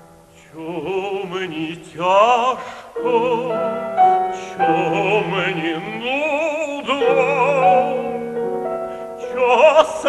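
Operatic tenor singing a Ukrainian romance with wide vibrato, accompanied by a grand piano. The voice comes in about half a second in, as the piano's introduction dies away, and sings in phrases over held piano chords.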